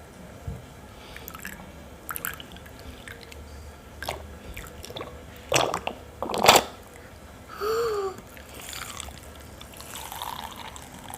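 Wet homemade slime being stirred and squished, with scattered drips and small splats and two louder squelches about halfway through.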